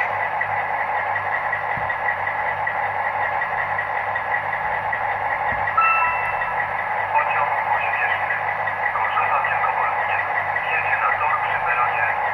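Recorded SU45 diesel locomotive engine sound played by a Zimo MX645P22 sound decoder through a model locomotive's small speaker, thin and tinny, running steadily. A short high tone sounds about six seconds in, and light ticking joins in the second half.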